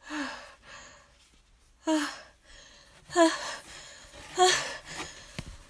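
A woman's pre-sneeze buildup: a series of short, breathy, half-voiced gasping inhales ("ah... ah...") about a second apart, growing louder over the first few seconds as a sneeze from allergies builds but does not yet come.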